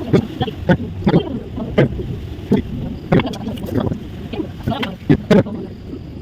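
Irregular knocks and clacks, about a dozen, over a steady low rumble, with two louder knocks about five seconds in.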